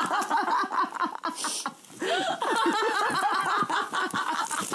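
Women laughing hard in quick repeated bursts, with a brief pause about a second and a half in before the laughter picks up again.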